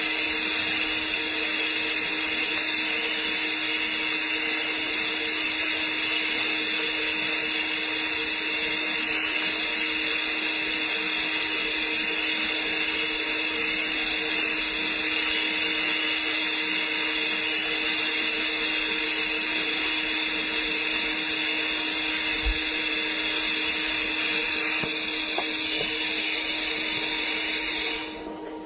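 Argon TIG welding arc on a pipe cap pass, a steady hiss with a faint even hum underneath, cutting off abruptly near the end as the arc is broken.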